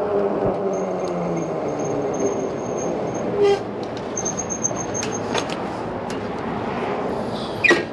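Steady wind and road noise of an e-bike ride, with a passing motor vehicle whose pitch slowly falls in the first two seconds. A few sharp clicks follow, and a short loud squeal comes near the end.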